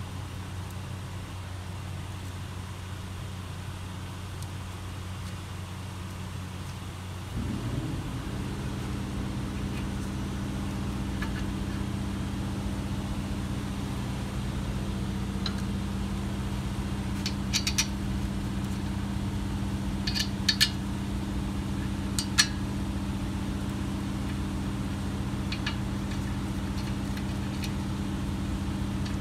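A steady low mechanical hum that shifts to a slightly louder, different hum about seven seconds in. Over it, a scattering of short, sharp metallic clicks and taps, in small clusters through the second half, as the brake caliper and its spring clip are handled.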